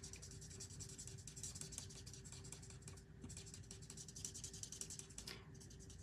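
Faint scratching of a Stampin' Blends alcohol marker on cardstock in many quick short strokes, colouring in small leaves.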